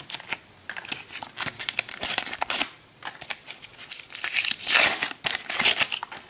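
Sticker packet wrapper being torn open and crinkled in the hands: short irregular crackles and rustles, loudest about two and a half and five seconds in.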